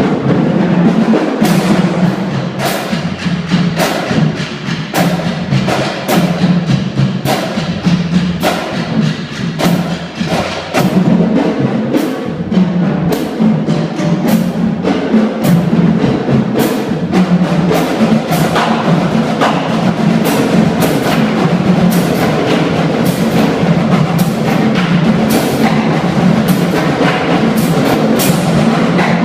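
Marching drumline battery playing a cadence: fast, dense drum strokes over low pitched drum tones, loud and continuous.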